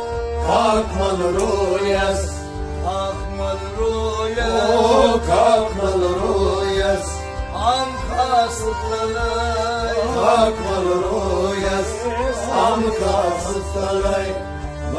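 Male voices singing a Kashmiri Sufiyana devotional song, with a harmonium holding sustained chords and a Kashmiri rabab plucking along. The melody wavers and ornaments over the steady harmonium drone.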